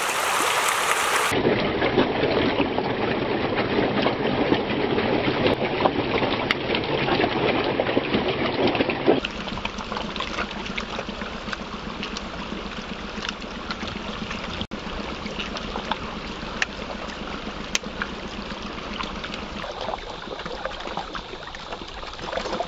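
A dense crowd of catfish thrashing and splashing at a pond's surface as they fight over fish feed: a continuous busy splashing full of small slaps, dropping in level about nine seconds in.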